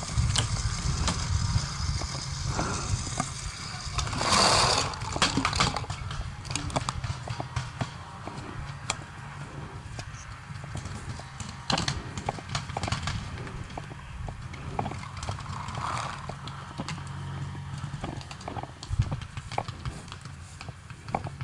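A paintball player's footsteps and rattling gear while moving across the field, with a steady low rumble of handling noise. Scattered sharp clicks and knocks run throughout, and there is a louder noisy burst about four seconds in.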